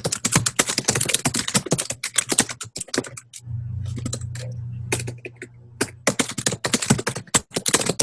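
Rapid typing on a computer keyboard, a dense run of clicking keystrokes. The typing stops for about two seconds just after the middle, leaving a steady low hum, then starts again.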